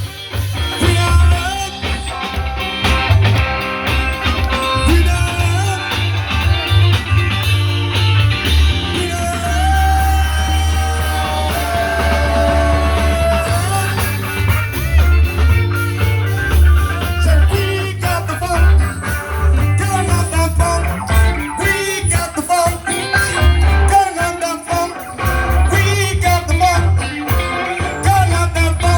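Background music: a rock-style song with electric guitar, a steady bass line and singing.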